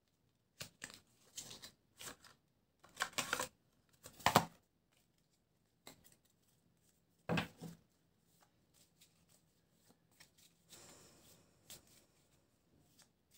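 A deck of oracle cards being shuffled and handled: a series of soft, irregular card flicks and riffles, the loudest about four seconds in.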